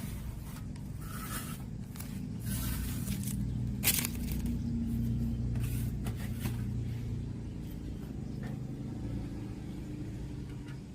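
Handling and scraping noises from work on a radio-cassette player, with irregular scrapes and rustles and one sharp click about four seconds in, over a steady low hum.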